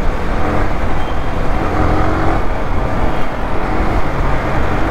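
Motorcycle riding along: the engine runs steadily under a loud, even rush of wind and road noise.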